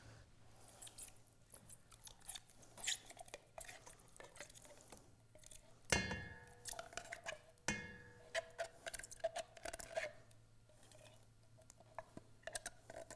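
Rubber spatula scraping canned pumpkin out of a tin can into a stainless steel mixing bowl: soft scrapes and small clicks. About six seconds in, a sharper knock sets the bowl ringing briefly, and a second knock follows a couple of seconds later.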